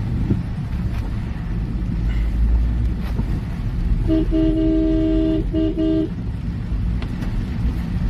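Steady low rumble of road traffic, with a vehicle horn honking about four seconds in: one long blast, then a short one.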